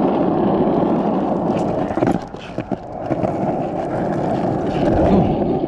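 A vehicle running steadily with a dense rumbling noise, dropping away briefly about two seconds in before coming back.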